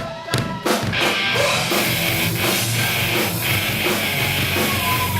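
Live rock band playing loud, with distorted electric guitar and a drum kit.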